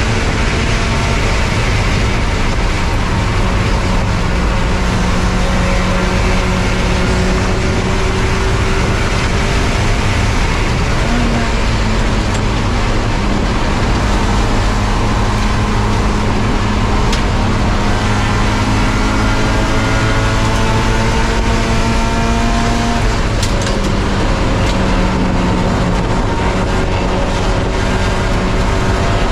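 Spec Miata race car's four-cylinder engine running hard at racing speed, its pitch changing several times as the revs climb and drop through the gears. A steady rush of road and wind noise runs underneath.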